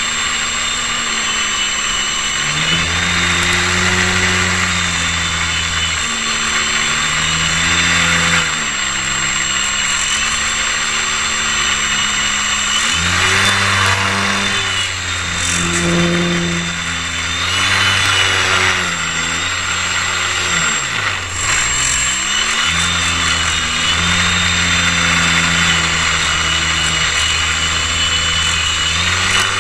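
A motor running continuously, its speed stepping up and down every few seconds as if on a throttle, with a quick drop and recovery about two-thirds of the way through. A thin, steady high whine runs under it.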